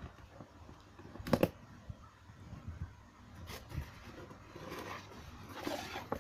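Scissors cutting the tape on a cardboard box and the box being handled: sharp clicks and knocks, the loudest a quick double snap about a second and a half in, then soft rustling and scraping as the cardboard lid is opened near the end.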